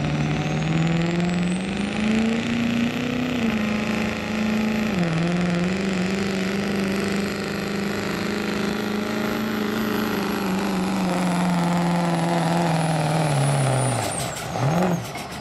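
Chevrolet Silverado's Duramax turbodiesel V8 under full load pulling a sled, its engine pitch climbing over the first few seconds together with a rising high turbocharger whistle, dipping briefly about five seconds in, then holding steady. Near the end the engine lets off and the whistle falls away, with a few sharp knocks.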